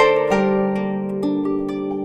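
Kanun, the Turkish plucked zither, played: plucked notes ring and slowly fade, with fresh lower notes struck about a quarter second in and again just past a second in.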